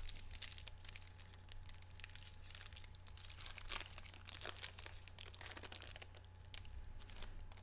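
Foil trading-card pack wrapper being torn open and crinkled by hand as the cards are pulled out: a faint, continuous run of crackles and rustles.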